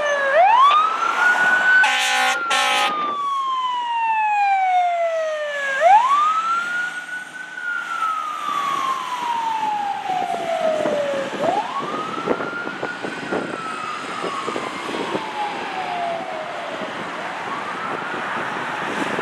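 Seagrave fire engine's siren on wail, rising quickly and falling slowly, one cycle about every five and a half seconds. There are two short horn blasts about two seconds in, and the last cycle is fainter.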